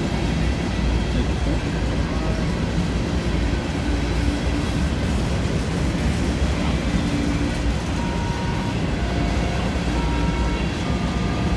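Covered hopper cars of a freight train rolling past close by: a steady rumble of steel wheels on the rails. A few short, steady squealing tones come in during the second half.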